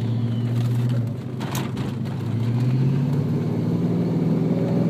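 Ford Mustang's engine heard from inside the car, running steadily under load. From about two seconds in its pitch rises slowly as the car speeds up.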